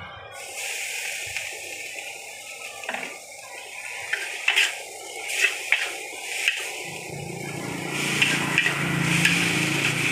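Fried noodles sizzling in a hot wok while a metal spatula stirs and tosses them. Sharp scrapes and clanks of the spatula against the wok come about once a second, strongest in the second half.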